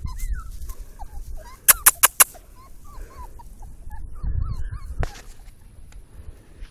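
Many short, squeaky animal calls in quick succession, with four sharp clicks close together about two seconds in, over a low rumble.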